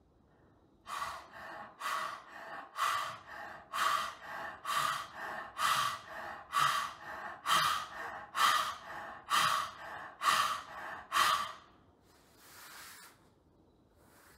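A man's forceful open-mouthed panting with the tongue out, the yoga lion breath (Simha Kriya). About a dozen sharp, loud breaths come roughly one a second, each with a softer breath between. Then comes one slower, softer breath out near the end.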